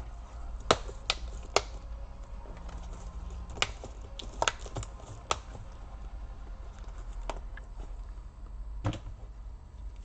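Laptop keyboard being fitted into the Toshiba Satellite C855's top case: about eight irregular sharp plastic clicks and taps as the keyboard is pressed down and seated into its clips.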